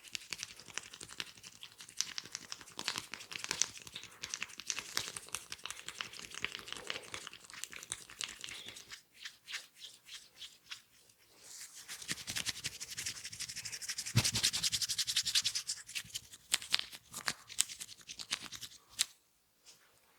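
Fingers scratching and rubbing hair and scalp close to the microphone during a head massage: a dense crackle of many quick scratches, growing thicker and louder for a few seconds past the middle.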